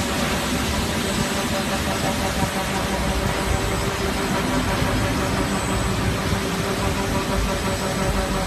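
Mengji MJ ZSFQ slitting and rewinding machine running steadily, slitting film with its circular knives and winding it onto narrow rolls: a constant mechanical hum with several steady tones and no change in speed.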